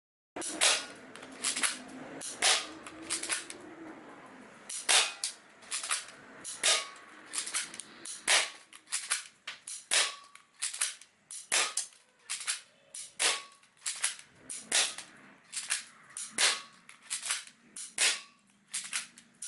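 Beretta-style airsoft pistol fired over and over, a sharp crack roughly every half-second to second at an uneven pace.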